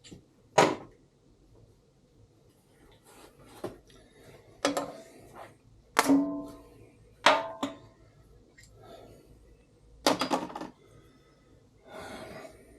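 Sharp metal knocks and clanks, about six in all, some leaving a brief ring, as parts are worked loose on a diesel cylinder head being stripped of its valves.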